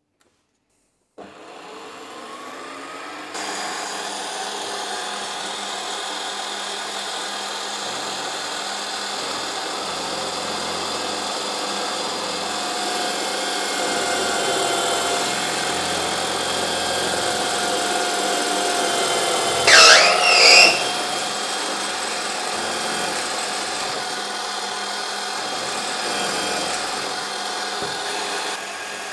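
Benchtop drill press starting about a second in and running steadily while its bit drills into an aluminium profile, the cutting noise growing louder a couple of seconds later. About two-thirds of the way through there are two brief, loud screeches.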